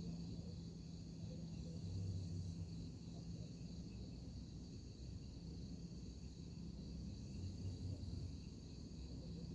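A sleeping person snoring low, two snores about six seconds apart, over a steady high insect chirring and a steady low hum.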